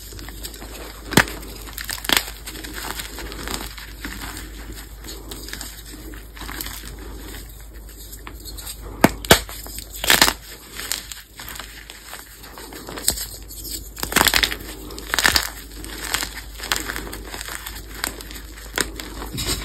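Pasted gym chalk blocks being snapped and crushed by hand: crunchy cracks at irregular intervals over a steady powdery crumbling rustle.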